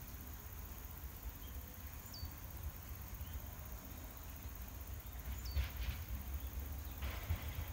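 Outdoor ambience: a steady low rumble with two short, falling bird calls, about two seconds and five and a half seconds in, and brief hiss twice in the last few seconds.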